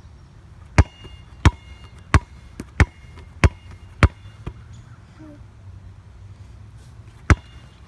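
Basketball bouncing on a hard floor: six bounces about two-thirds of a second apart, each with a short ring, then a pause of about three seconds and one more bounce near the end.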